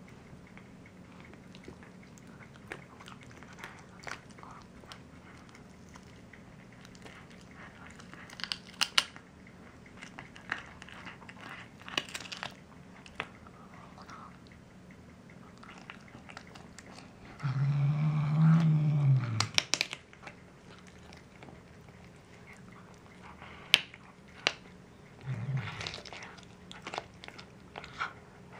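Black domestic shorthair cat chewing raw chicken leg and thigh pieces with bone and skin on, with scattered sharp crunches of bone. About two-thirds of the way through, a low drawn-out voice-like sound rises and falls for about two seconds, and a shorter one follows later.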